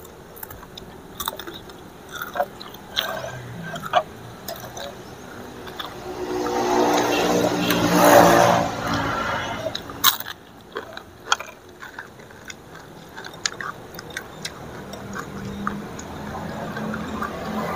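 Two people eating noodle soup: spoons and forks clicking against bowls, with chewing and crunching of crisp fried tempeh. In the middle a louder whooshing swell rises and fades over about three seconds.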